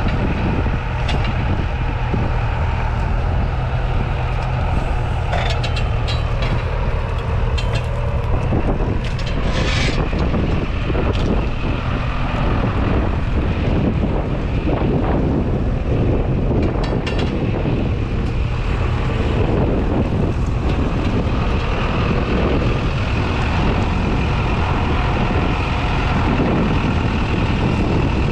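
Valtra A95 tractor's 4.4-litre four-cylinder diesel engine running steadily under load while pulling a reversible plough, with its note shifting about a third of the way through and a few brief sharper noises over it.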